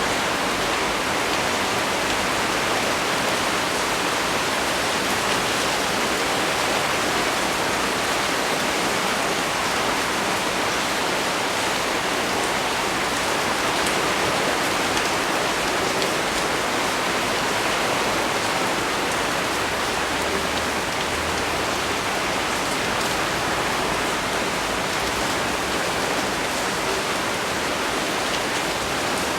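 Heavy rain pouring steadily onto leaves, an even hiss with faint individual drop ticks.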